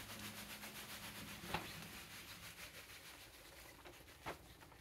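Perlite pouring from a bag into an empty plastic storage tub: a faint, steady granular hiss. There is a light tap about a second and a half in and another near the end.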